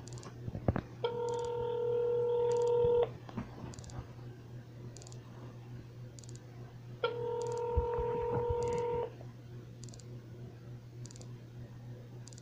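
Ringback tone of an outgoing phone call, heard over the phone's speaker: two rings, each a steady tone lasting about two seconds, spaced about six seconds start to start. The line is ringing at the other end and has not yet been answered.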